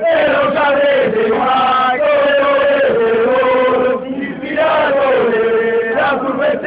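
Football supporters in the stands chanting in unison, a loud sung chorus of men's voices holding a melody, with a brief breath between phrases about four seconds in.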